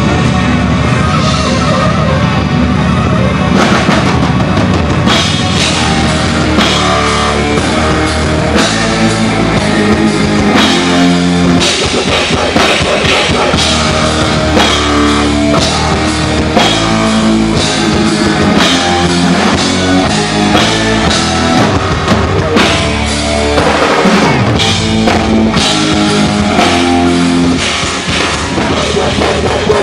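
Loud rock music with a drum kit keeping the beat.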